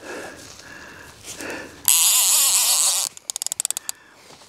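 Boat-fishing reel's drag giving line as a hooked fish runs: a loud buzzing whine for about a second, about two seconds in, then a quick run of ratchet clicks.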